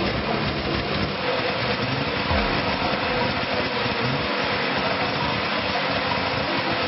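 Engine of an old truck running steadily.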